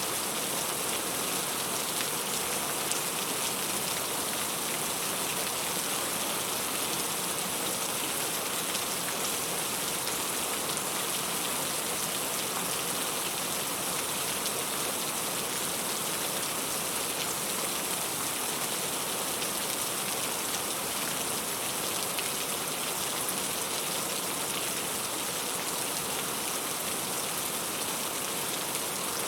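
Steady rain falling, a dense even hiss sprinkled with small individual drop hits.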